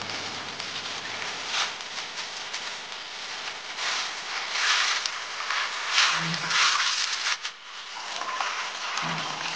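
Water splashing and dripping in a stone trough as bunches of fish mint (Houttuynia) are swished, lifted and shaken during rinsing, in uneven surges that are loudest around the middle.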